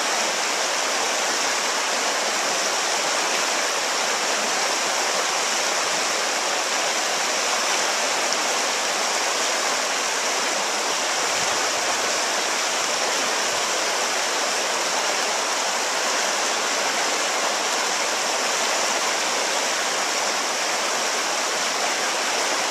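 River water rushing through rocky rapids: a steady, unbroken hiss of white water running over stones.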